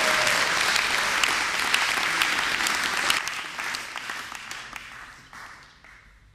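Audience applauding, a dense clapping that thins and fades away over the last three seconds.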